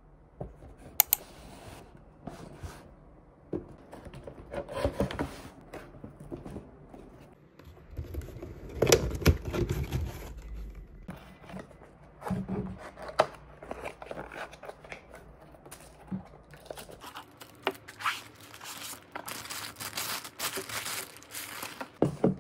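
Cardboard box and paper packaging being opened and handled: rustling, tearing and crinkling of cardboard and paper, with a few sharp knocks. The crinkling of wrapping paper grows denser near the end.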